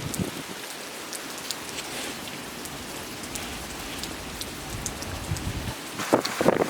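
Wind-driven rain falling steadily, with scattered drops ticking close by and low gusty rumbles toward the end, then a couple of louder knocks near the end.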